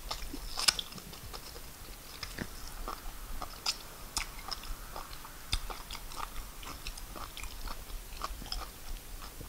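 Close-miked mouth sounds of chewing fufu with peanut soup eaten by hand: many short, scattered clicks and smacks.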